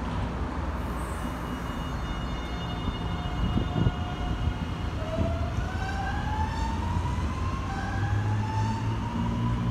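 Electric commuter train pulling away from a station platform: a low rumble under a whine from the traction motors that holds steady, then about halfway through rises in pitch, drops back and rises again as the train gathers speed.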